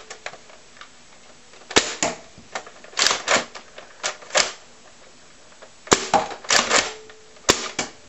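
Nerf Raider foam-dart blaster, modded with its air restrictor removed, being pumped and fired several times in a row: sharp plastic clacks and short rattles in clusters about a second apart.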